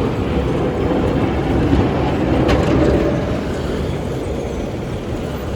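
Motor vehicle running in street traffic, a steady engine noise, with wind buffeting the microphone and one brief click about two and a half seconds in.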